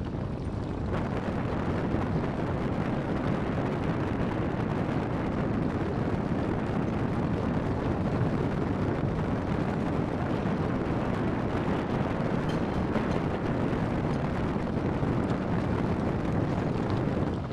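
Wind buffeting the camera microphone: a steady, low, even rush with no distinct events.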